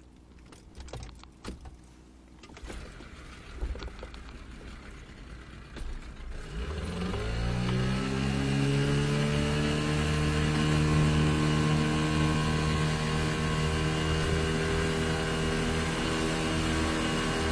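Scattered knocks and clatter, then about six and a half seconds in a motor starts, its pitch rising for a second or so and then holding steady as it keeps running.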